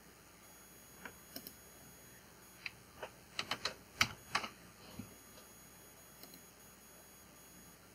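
Computer keyboard keys being tapped: a scattering of single clicks, bunched most closely a little before the middle, with pauses between.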